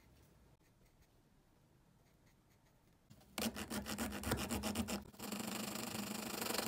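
A small metal file rasping against the rim of the drill's DC motor can, where the end cap sits. It starts about three seconds in with quick back-and-forth strokes, then runs on as a steadier rasp.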